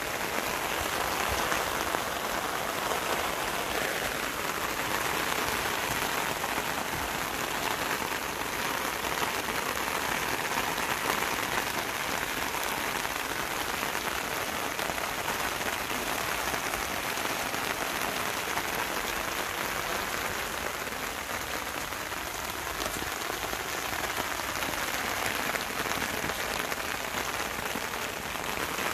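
Steady rain falling on wet leaves and the ground, a dense even hiss of many small drops.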